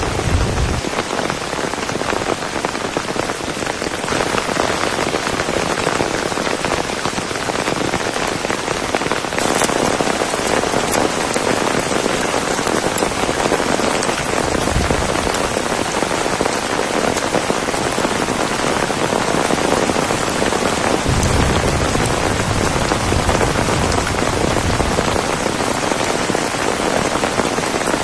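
Heavy tropical downpour, a steady dense hiss of rain falling with a couple of brief low rumbles.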